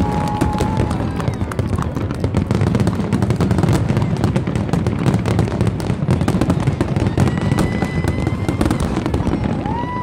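A dense barrage of aerial fireworks: shells bursting one on top of another in a continuous deep rumble, thick with rapid crackling.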